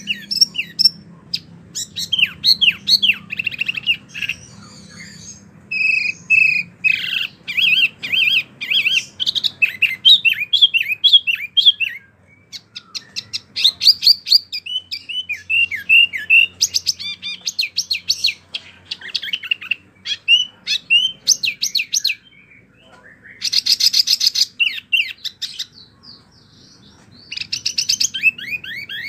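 Wambi mini songbird singing hard: quick chirping phrases mixed with fast buzzy trills, broken by a few short pauses.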